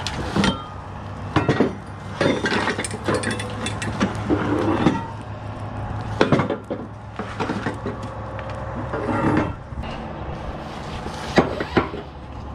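Irregular metal clanks and knocks from flatbed strap winches and straps as the load is unstrapped, the winch released with a winch bar.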